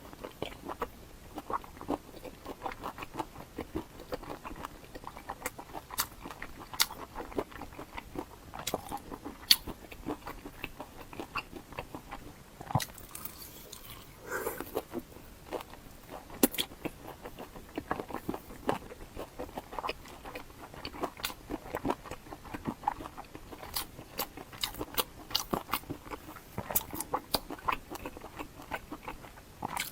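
A person chewing and biting food close to the microphone, with many irregular sharp mouth clicks.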